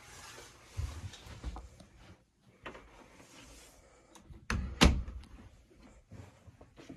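Knocks and thumps of someone moving through a camper's bathroom doorway, in a small room. A soft rustle comes at the start, and the loudest sounds are two sharp knocks close together about four and a half seconds in.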